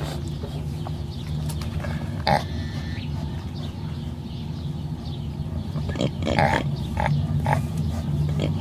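Pot-bellied pig lying asleep, grunting a few times: short ones about two seconds in and near the end, with a longer one about six seconds in, over a steady low drone.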